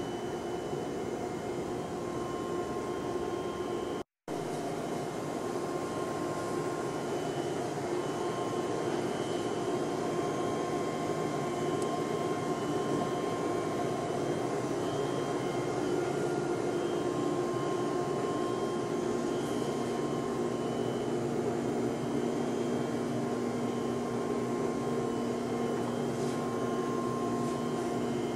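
Vacuum chamber's pumping system running: a steady mechanical whir with several steady whining tones over it. It cuts out for a moment about four seconds in, and a lower steady hum joins about two-thirds of the way through.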